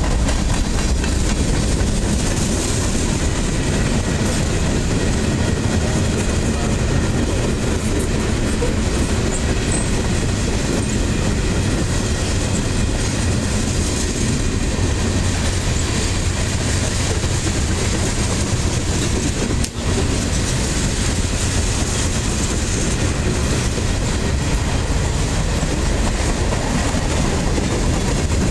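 Freight cars of a passing train rolling by close to the track: a steady, loud noise of steel wheels running on the rails.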